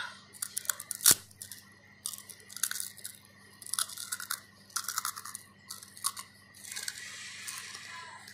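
Crispy deep-fried pork skin being bitten and chewed close to the mouth: crunching in short bursts about once a second, with a sharp crack about a second in.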